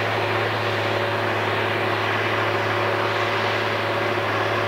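An engine running at a constant speed: a steady low drone with a fainter steady tone above it, unchanging throughout.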